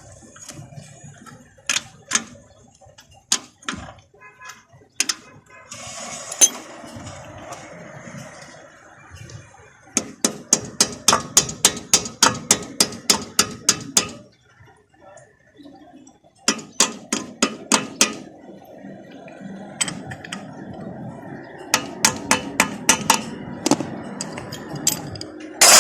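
Metal clicking in quick runs of a few seconds, about five clicks a second, with scattered single clinks of tools and parts, during work on a car's drum brake.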